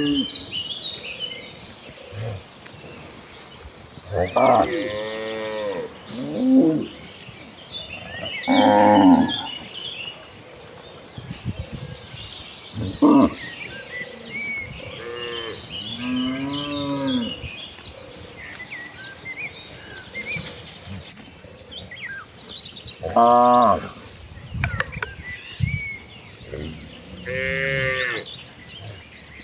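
Cattle mooing again and again, about eight separate moos spread through, some short and some drawn out, with a steady high-pitched whine and small chirps behind them.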